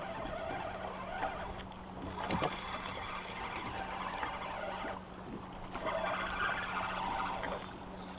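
Steady low hum with water noise and light clicks and rustles on a small fishing boat while a hooked fish is played.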